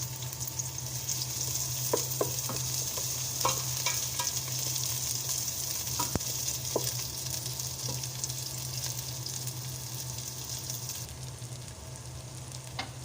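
Chopped garlic and onion sizzling in hot cooking oil in a pan, stirred with a utensil that clicks and scrapes against the pan several times in the first seven seconds. The sizzle thins out about eleven seconds in.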